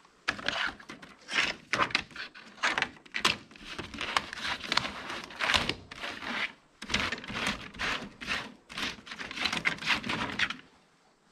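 Debris being disturbed in an abandoned building: irregular crunching, crackling and knocking for about ten seconds, stopping shortly before the end.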